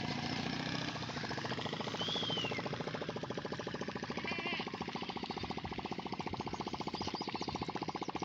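A small engine running with a rapid, even chugging pulse, steadiest from about three seconds in.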